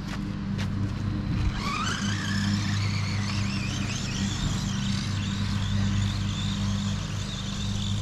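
Remote-control truck's electric motor whining as it is driven across the lawn. The whine starts about two seconds in and rises and wavers in pitch with the throttle, over a steady low hum.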